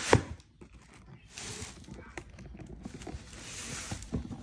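Cardboard shoe boxes being handled: a sharp knock right at the start, then soft rustling in swells with a few light taps.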